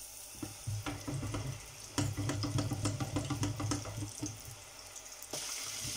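Pork strips deep-frying in a pot of hot oil: the oil bubbles and crackles with many sharp pops, and the wire frying basket clinks against the pot. A brighter, steadier sizzle comes in about five seconds in.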